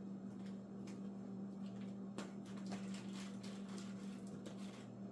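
Quiet room sounds: a steady low hum, with light footsteps on a vinyl floor and small scattered clicks and rustles of things being handled on a countertop.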